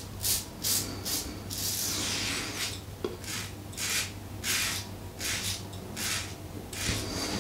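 Alpha Outlaw Evolution stainless-steel double-edge safety razor scraping through lathered stubble against the grain, in about a dozen short rasping strokes, one longer stroke about two seconds in.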